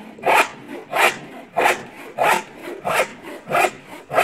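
A hand saw cutting through wood in steady, even strokes, about three strokes every two seconds.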